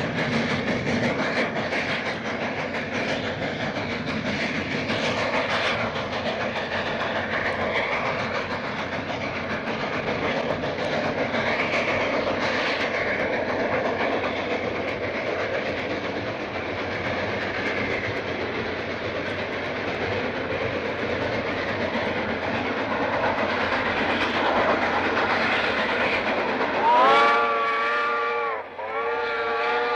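Locomotive running after leaving a station, a steady rumbling clatter. Near the end its whistle sounds twice, a chord of several tones, the second blast longer.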